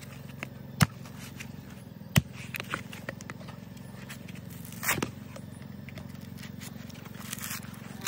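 Machete chopping into the fibrous husk of a coconut. There are two sharp chops about a second and a half apart, then a rougher scraping stroke about five seconds in, with smaller knocks in between, over a steady low hum.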